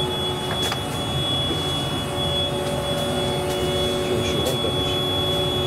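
Ship's engine-room machinery running steadily and loud: a dense low diesel drone overlaid with constant whining tones at several pitches, one of them high and piercing.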